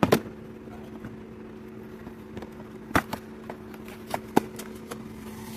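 Scattered sharp clicks and knocks of a hard plastic container being tipped and handled, with coins loose inside it, over a steady low hum.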